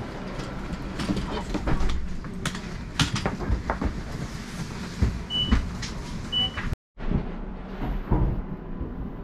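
Steady low rumble inside a passenger train carriage, with scattered knocks and clatter of people and a rolling suitcase moving along the aisle. Two short high beeps a little over a second apart sound past the middle, and the sound drops out for an instant soon after.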